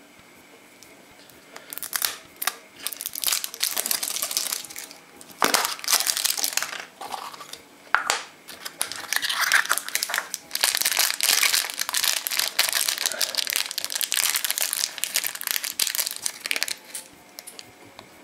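Thin plastic wrappers and small plastic bags crinkling and rustling in the hands in repeated bursts, starting about two seconds in and stopping near the end, with a few sharp plastic clicks among them.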